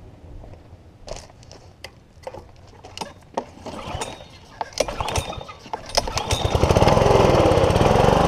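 Gas pressure washer's Honda GCV single-cylinder four-stroke engine being pull-started: a few knocks and clicks of handling and pulls on the cord, then the engine catches about six seconds in and runs loudly and steadily.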